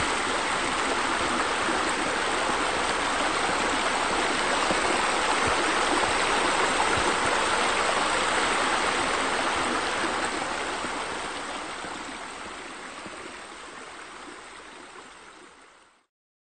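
Steady rush of running, splashing water from a pool's fountain jets and bubblers. It fades out over the last several seconds and stops just before the end.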